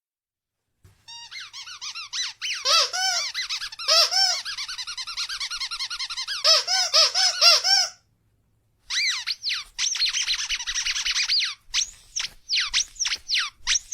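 Squeaky dog toy squeezed over and over in fast runs of high-pitched squeaks, with a pause about eight seconds in and a few separate squeaks near the end.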